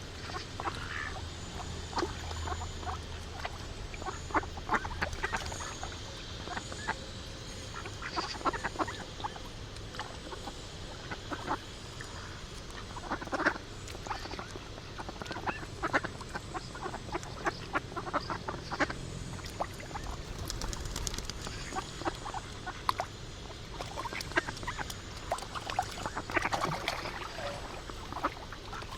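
Ducks quacking in many short, irregular calls, over a faint low hum for the first few seconds.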